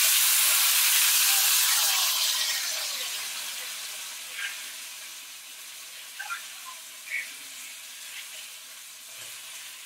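Steak sizzling as it is laid into a hot skillet to sear: a loud hiss that starts suddenly, is strongest for the first couple of seconds and then slowly dies down, with a few small spits and crackles.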